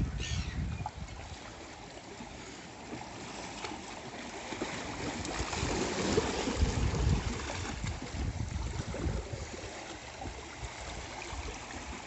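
Seawater washing and gurgling among shoreline rocks as small waves surge in, swelling louder about halfway through. A low rumble near the start.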